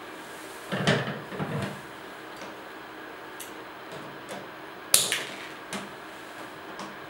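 Padlock and metal hasp on a plastic cash box clinking and rattling as they are handled, then one sharp click a little before five seconds in, followed by a few small ticks.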